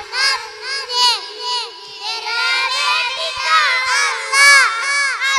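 A group of young children singing together into stage microphones, several high voices overlapping.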